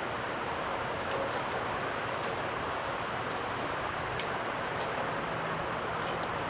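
Steady hiss of heavy rain during a thunderstorm, with scattered sharp ticks; no thunderclap.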